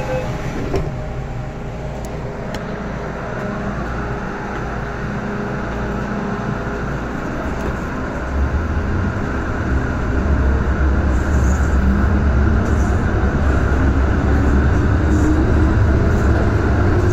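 MTR M-train electric multiple unit pulling out of a station, heard from inside the car. A few clicks come in the first seconds, then the running noise builds as the train accelerates, growing louder about halfway through, with a rising whine near the end.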